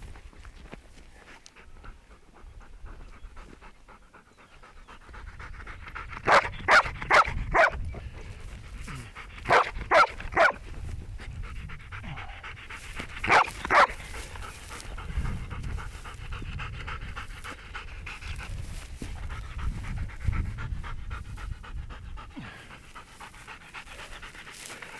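A dog panting hard and steadily, broken by three quick runs of short, high, sharp cries: four, then three, then two.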